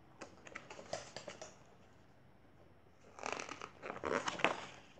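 A picture-book page being handled and turned by hand: light paper taps and crinkles in the first second and a half, then a louder rustle of paper about three seconds in.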